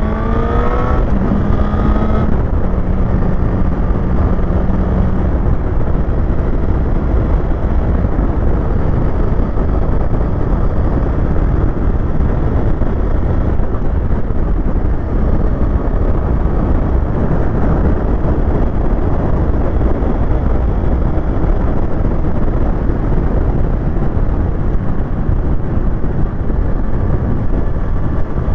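Heavy wind noise buffeting a helmet microphone on a moving motorcycle: a loud, steady low rush that all but buries the engine, which is heard revving up in the first couple of seconds. The rider puts the noise down to wind hitting the helmet.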